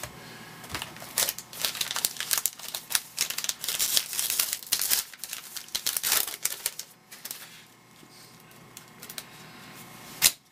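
Trading-card pack wrapper being torn open and crinkled: a dense run of crackles for about seven seconds, then quieter rustling as the cards are handled. One sharp click, the loudest sound, comes just before the end.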